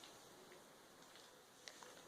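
Near silence with a few faint, short clicks from slime being handled, two of them close together near the end.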